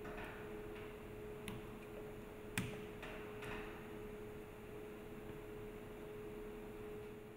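A few light clicks and taps of the agitator's mechanical seal parts being handled and pushed onto the steel shaft, the sharpest about two and a half seconds in, over a faint steady hum.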